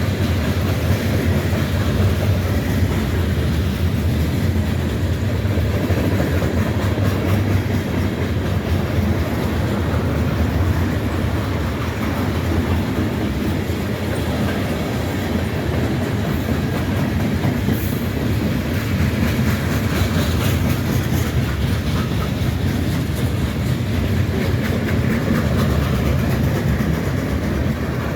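Freight train cars rolling past in a steady rumble, wheels clacking over the rail joints.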